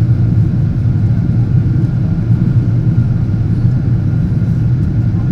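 Cabin noise inside a Boeing 777-200 airliner: a steady low rumble of engines and airflow, with a faint steady whine above it.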